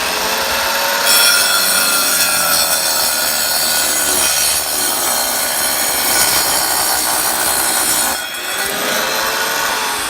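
Wet tile saw run dry, its diamond blade grinding through a piece of manufactured stacked-stone veneer. The cut is loud and harsh from about a second in until about eight seconds in, then the saw keeps spinning with less load.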